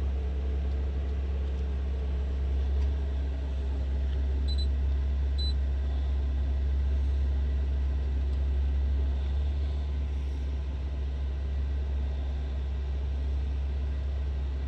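A steady low rumble of machinery runs throughout. About four and a half seconds in come two short, high electronic beeps about a second apart.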